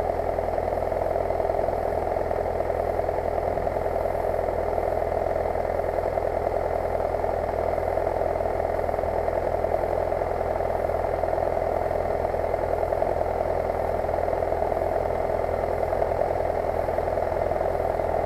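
Dual-sport motorcycle engine idling steadily while the bike stands still.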